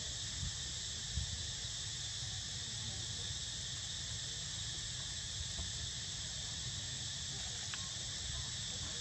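Steady, unbroken high-pitched drone of insects in the woodland, with a low rumble underneath.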